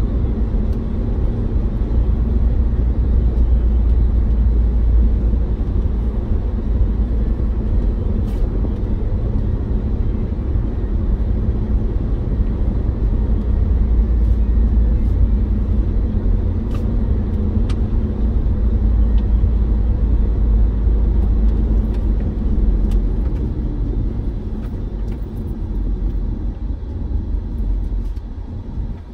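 Steady low road rumble inside a car cabin at highway speed, from tyres and engine, easing off slightly near the end.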